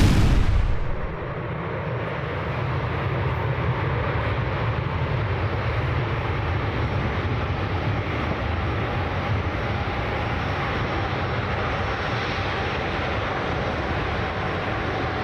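Boeing 747-400F jet engines running as the freighter rolls down the runway, a steady distant roar with a deep rumble, during a takeoff aborted after one of its port-side engines failed and smoked. At the very start, the fading end of a loud bang.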